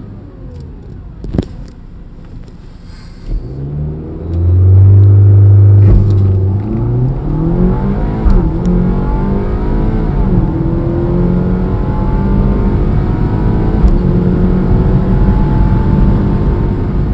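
Audi Q5's 2.0-litre turbocharged four-cylinder (2.0T FSI) running quietly, with a couple of sharp clicks, then held at steady high revs for about two seconds. It then accelerates hard, the engine note climbing with two quick drops in pitch as the 8-speed Tiptronic upshifts, and keeps rising under full throttle to the end.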